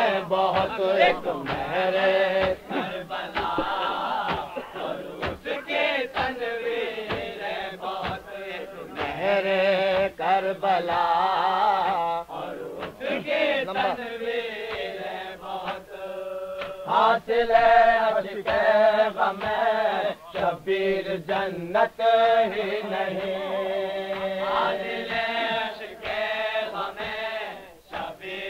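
Male reciters chanting an Urdu salam in a slow, melodic, wavering line, on an old, muffled recording, with a steady beat of dull thuds underneath.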